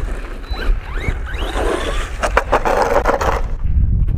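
HNR Mars 1/10-scale 4WD RC monster truck driven hard on rough concrete: its motor whines up in pitch in several quick bursts, then the tyres scrabble and crackle over the gritty surface for a couple of seconds. A low wind rumble runs underneath.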